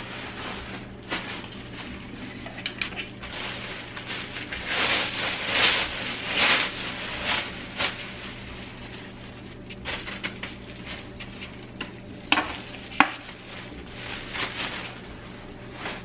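Scratchy rustling and scraping from cleaning out a sink cabinet with a plastic dustpan, hand brush and wipe, busiest about five to seven seconds in, with two sharp knocks about twelve and thirteen seconds in.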